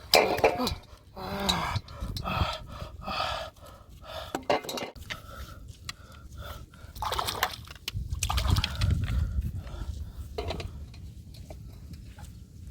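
A person's voice in short exclamations, mixed with sharp clicks and knocks; a rougher, noisier stretch follows in the second half.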